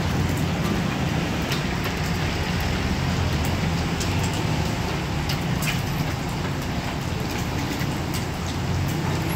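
A crab omelette deep-frying in a wok of hot oil: steady sizzling over a low roar from the stove's fire, with a metal ladle and tongs clicking and scraping against the wok now and then.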